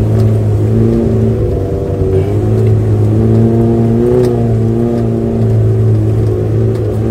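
Small four-cylinder Suzuki Jimny engine heard from inside the cab, pulling steadily under load, its pitch rising and falling slightly as the throttle changes.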